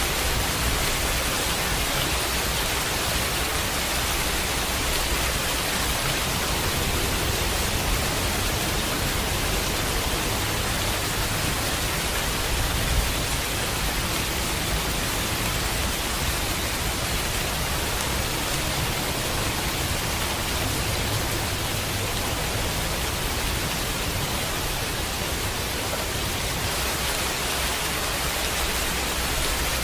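Steady heavy rain falling, an even hiss, with a low rumble underneath that swells at times in the middle.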